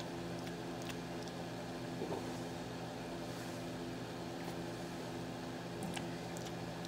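Steady electrical hum of a small all-metal electric space heater running, with a few faint ticks.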